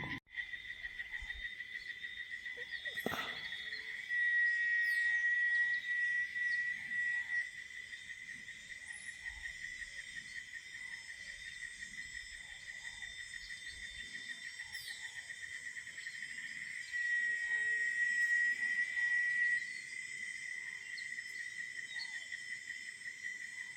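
Steady, rapidly pulsing insect trill that swells louder twice for a few seconds, with one sharp click about three seconds in.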